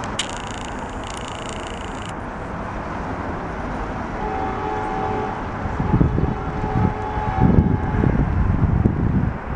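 Steady rumble of engines and traffic, with a faint steady tone through the middle. From about six seconds in, wind buffets the microphone.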